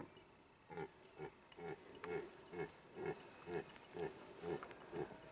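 Red stag chuckling: a run of about ten short, evenly spaced grunts, about two a second.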